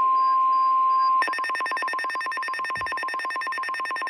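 NOAA Weather Radio's steady 1050 Hz alert tone, joined about a second in by a rapid, harsh electronic alarm beeping that keeps pulsing over the tone. The tone signals an incoming emergency alert.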